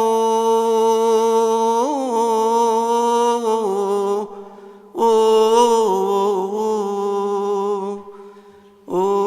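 A solo male voice chanting a Coptic Orthodox hymn: long, slowly bending notes held on one vowel, broken by two short pauses.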